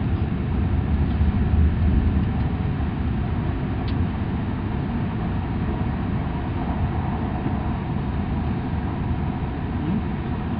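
Steady low rumble and rolling noise heard inside a passenger car of an E6-series Super Komachi shinkansen running at speed on the line out of Morioka.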